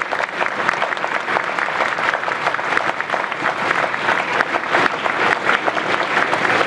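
Large audience applauding: dense, steady clapping with no break.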